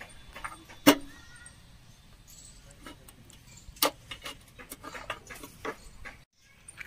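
Metal tool clicking and tapping against rusty motorcycle parts: a sharp click about a second in, another near four seconds, with lighter ticks between.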